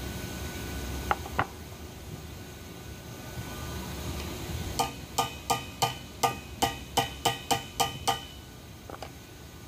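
Metal being struck: two sharp knocks, then a steady run of about eleven ringing strikes at roughly three a second, each leaving a short metallic ring.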